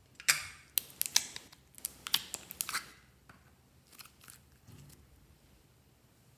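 Glossy slime being squeezed and worked by hand: a quick run of sharp, sticky clicks and crackles in the first three seconds, then a few fainter ones about four seconds in.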